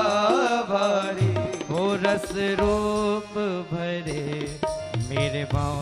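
Hindi devotional bhajan: a man singing drawn-out, wavering melodic phrases with keyboard and tabla accompaniment.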